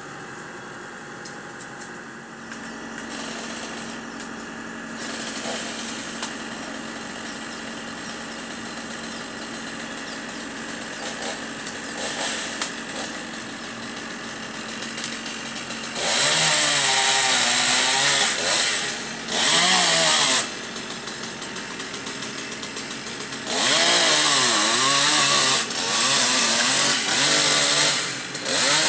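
A chainsaw runs at low idle for about half the time, then is revved hard in a series of bursts, cutting into the limbs of a corkscrew willow, its pitch dipping each time it bites into the wood.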